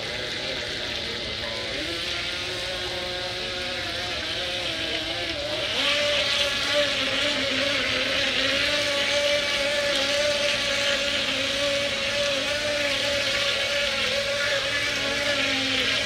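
Small remote-control boat's motor running with a steady whine that wavers slightly in pitch, over a hiss of spray as it cuts through the pool water towing a board. It gets louder about six seconds in.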